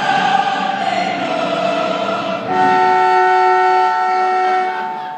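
Several voices singing together, cut off about two and a half seconds in by a long, steady horn blast of several tones at once, held for about two seconds before it fades.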